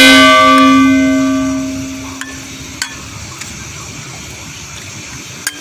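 A metal cooking pot knocked once, a sharp clang that rings on with several clear tones and fades away over about two seconds. A couple of faint clicks follow.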